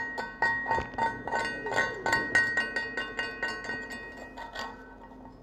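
Chipping hammer knocking slag off a freshly laid stick-weld (SMAW) fill bead on a steel plate overhead: rapid ringing metal taps, about five a second, stopping about a second before the end.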